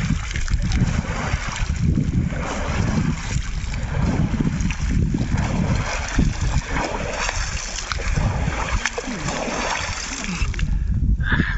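A cold-water swimmer wading in lake water, scooping and splashing water over himself with his hands: repeated splashing, over a low uneven rumble.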